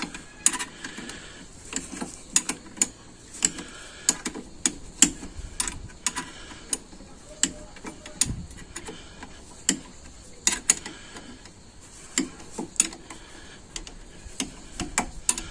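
Ratchet wrench clicking in short, irregular runs as a front brake caliper bolt is tightened by hand.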